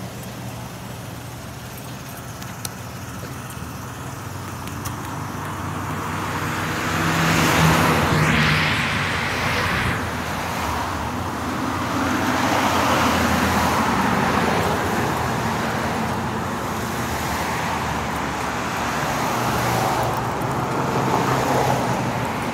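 Road traffic: several vehicles pass one after another, each swelling and then fading, the loudest about eight seconds in.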